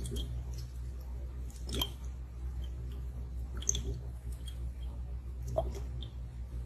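Glass massage globes being picked up and handled: a few short taps and clicks, about one every two seconds, over a steady low hum.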